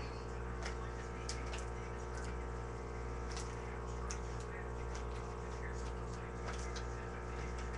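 Faint scattered clicks and ticks of a playing card being handled and flexed in the hands, over a steady low hum.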